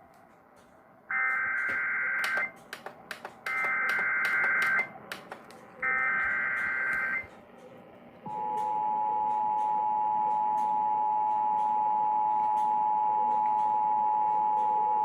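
Emergency Alert System test signal: three short bursts of the SAME digital header, a harsh high two-note warble each about a second and a half long, with faint clicks between them. About eight seconds in, the EAS attention signal begins, a steady two-note alarm tone that holds on.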